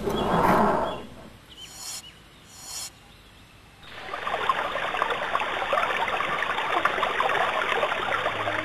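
Forest ambience: a loud rush of noise in the first second with a few faint bird chirps, then, from about four seconds in, a steady babbling of running water like a stream.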